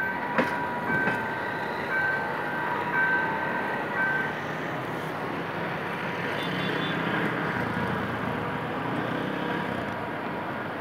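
Passenger train coaches rolling away over the rails in a steady rumble, with a few wheel clicks over rail joints in the first second or so. An electronic warning beep repeats about once a second and stops a little over four seconds in.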